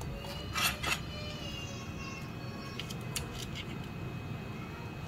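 Small plastic parts and wires being handled and fitted into a 3D-printed RC car chassis: light clicks and taps, with two sharper clicks about half a second apart near the start and a few softer ticks later.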